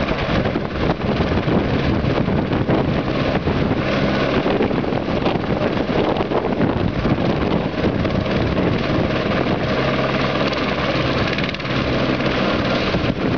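Military helicopter running close by: steady, loud turbine and rotor noise.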